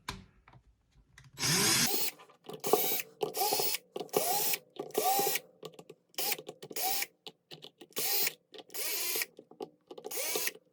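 Power driver backing out Phillips-head screws from a drill's plastic case, in about ten short bursts, its motor whining up to speed and winding down each time.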